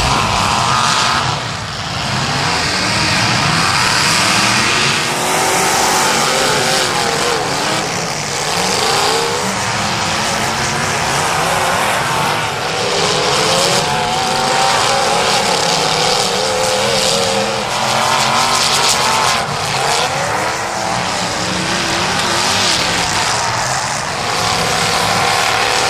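Engines of several demolition derby cars revving hard as they race, their pitches overlapping and rising and falling as the drivers get on and off the throttle.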